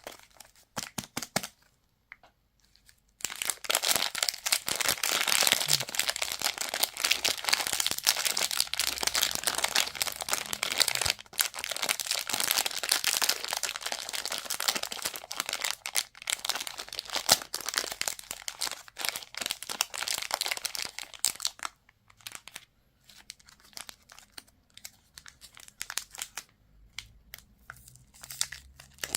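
Packaging crinkling and tearing as it is unwrapped by hand. The crackling is dense and continuous for most of the time, then thins to scattered crinkles near the end.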